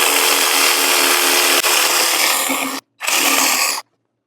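Power tool running on wood, taking a little material off a bent hardwood panel: one run of about three seconds, a brief stop, then a short second burst that cuts off.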